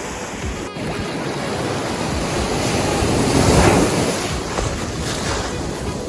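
Ocean surf washing up a sandy beach, with foamy wash over the sand; a wave surges in and swells loudest about three and a half seconds in.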